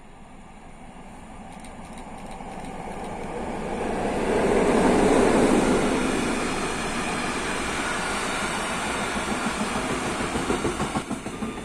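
Freight train of tank wagons passing close by: the sound builds as the locomotive approaches and is loudest about five seconds in as it goes past. The wagons then roll by, with a rhythmic clatter of wheels near the end.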